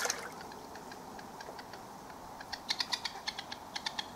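A rapid, irregular run of sharp clicks, several a second, starting about halfway through over a low background hiss.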